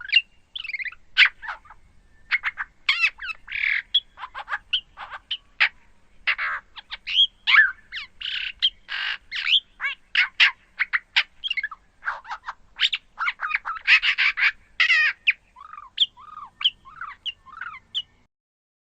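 Red-backed shrike and bearded reedling calls edited into a speculative dinosaur call: a rapid, irregular string of harsh squawks and chirps, several a second. It ends with a few short arched notes and then stops shortly before the end.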